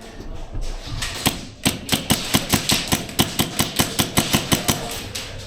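Airsoft gunfire: a rapid run of sharp shots, about five a second, starting about a second in and stopping shortly before the end.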